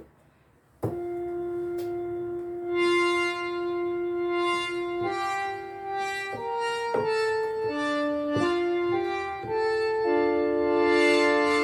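Arturia Analog Lab V software synthesizer playing a vintage-style sustained patch: after a brief silence, held notes enter one at a time in a slow melody, then build into two- and three-note chords, each new note starting with a slight click.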